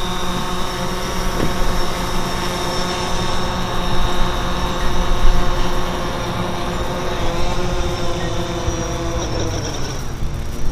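DJI Phantom 4 quadcopter's propellers and motors whining steadily as it comes in to land on a flat battery, with low wind rumble; near the end the motors spin down, the pitch sliding lower before the whine stops.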